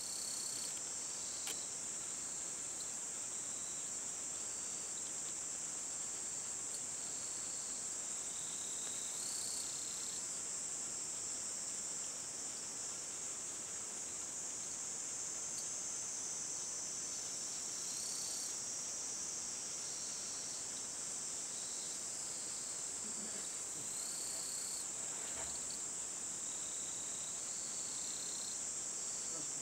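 Steady high-pitched chorus of insects outdoors, with other insect calls swelling in briefly every several seconds.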